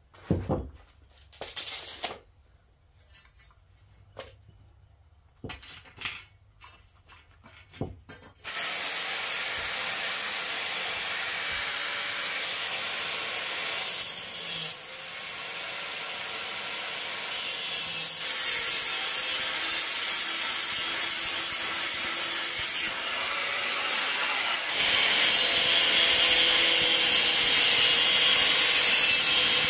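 A few scattered knocks, then about eight seconds in a handheld electric angle grinder starts and runs steadily with a whine. Near the end it bites into an iron bar and gets louder as the disc cuts the metal.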